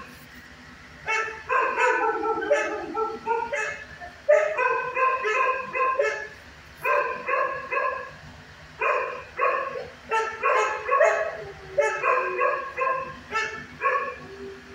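Dog barking in runs of several quick barks with short pauses between them. About two seconds in, one run carries a longer falling note.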